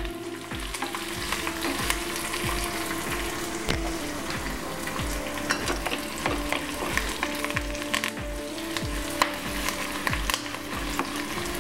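Tempering of garlic, curry leaves, dried red chillies, cumin and mustard seeds sizzling in hot oil in a kadai, with frequent sharp crackles and pops and the sound of stirring.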